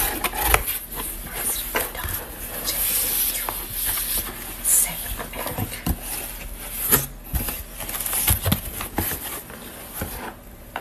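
Cardboard mailing package being handled and torn open by hand: irregular rustling and crackling of paper and cardboard, with several louder crackles scattered through.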